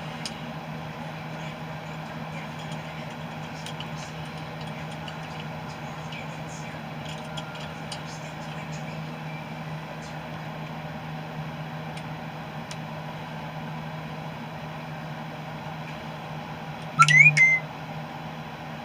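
A steady low mechanical hum with a few faint clicks, and near the end a brief loud squeak that rises in pitch.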